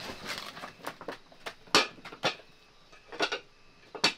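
A cooking utensil knocking and scraping against a metal pot while cabbage is stirred, about six sharp clinks spread unevenly, the loudest a little under two seconds in.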